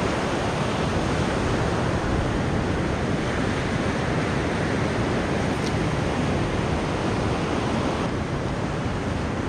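Ocean surf breaking and washing on a sandy beach: a steady rushing noise, with some wind on the microphone.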